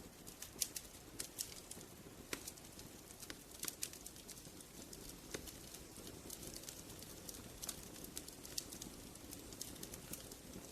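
Wood fire crackling: irregular sharp snaps and pops, a few to several a second, over a soft steady hiss of burning logs.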